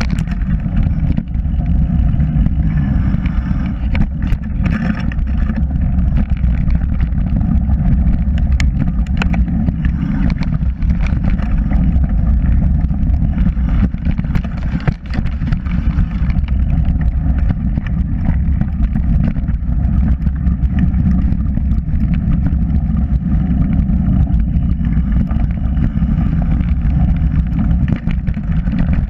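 Mountain bike riding down dirt singletrack, heard from a bike-mounted action camera: a loud, steady low rumble of wind on the microphone and tyres rolling on dirt, with scattered short knocks and rattles as the bike goes over bumps.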